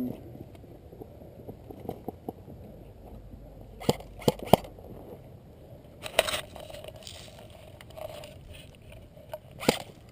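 Sharp cracks of airsoft guns firing scattered shots: three in quick succession about four seconds in, another about six seconds in, and one near the end.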